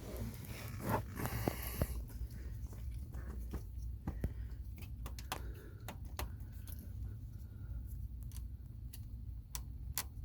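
Handling noise from work under a car's dashboard: scattered light clicks and scrapes, irregular and several a second at times, over a steady low hum.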